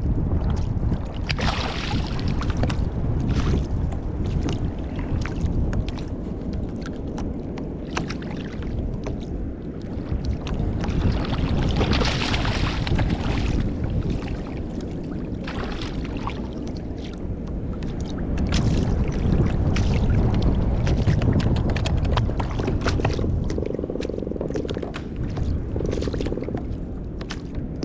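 Wind buffeting an outdoor microphone and small waves slapping and gurgling against a sit-on-top kayak's hull, with scattered sharp clicks and splashes.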